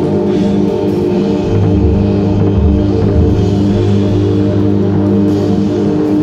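Experimental music: a Eurorack modular synth holds sustained low pitched tones while a drum kit is played live over it. The lowest synth notes shift in pitch a couple of times.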